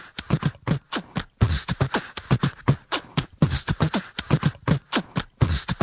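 Beatbox-style rhythm of quick percussive clicks and low thumps that drop in pitch, the opening of a song.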